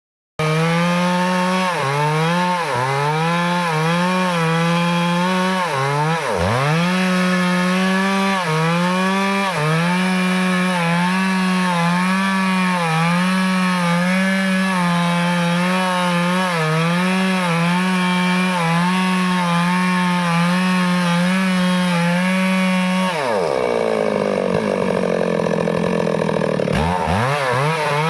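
Stihl chainsaw running at high revs while cutting teak wood, its pitch dipping briefly and recovering every second or so. About three-quarters of the way through the engine drops to a lower speed for a few seconds, then revs back up near the end.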